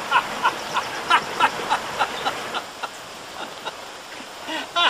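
A duck quacking in a quick run of short calls that fades out about halfway through, then two louder quacks near the end.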